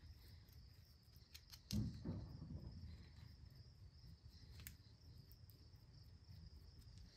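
Near silence: faint handling of a greased brake caliper slide pin and bracket, with a soft knock about two seconds in and a few light clicks, over a faint steady high-pitched drone.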